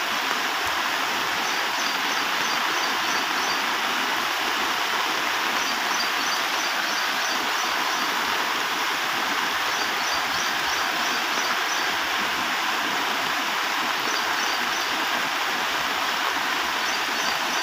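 Muddy floodwater rushing over a road in a steady, even rush. A high chirping recurs in short clusters every few seconds.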